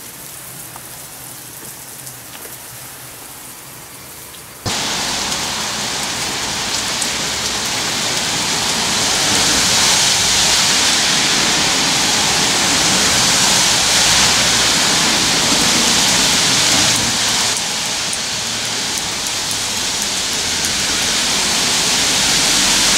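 Heavy rain pouring down in a steady hiss. It becomes suddenly much louder about five seconds in and is loudest in the middle.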